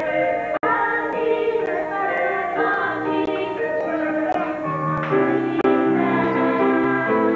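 Children's choir singing a song in long held notes, with lower notes coming in about five seconds in. A momentary dropout cuts the sound just over half a second in.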